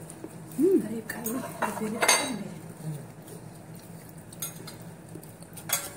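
Metal fork clinking and scraping against a ceramic bowl several times while eating salad, the sharpest clink about two seconds in, with a short vocal sound from the eater near the start.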